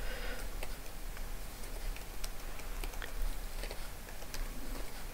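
Computer keyboard keystrokes: light, irregularly spaced key clicks as spreadsheet cells are cleared and retyped.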